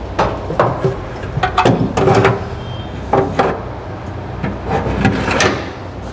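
Sharp clunks and knocks of a Godrej steel locker being handled. Several come close together in the first two and a half seconds, then one more a little after three seconds and another about five seconds in, over a steady low hum.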